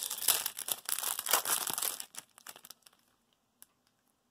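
Foil wrapper of a trading-card booster pack crinkling and tearing as it is ripped open, for about two seconds, then a few faint clicks as the cards inside are handled.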